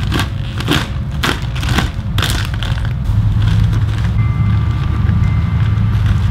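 Plastic bag of topper soil crinkling and crackling as it is gripped and worked open, a crackle about every half second for the first two and a half seconds, over a steady low rumble that runs throughout.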